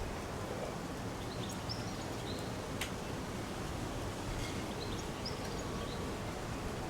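Steady outdoor background noise picked up by the camcorder's built-in microphone, with faint short high chirps now and then and a single sharp click about three seconds in.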